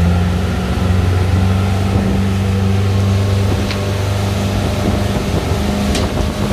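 Motorboat engine running steadily at cruising revs after throttling up, a constant hum over a rush of wind and water.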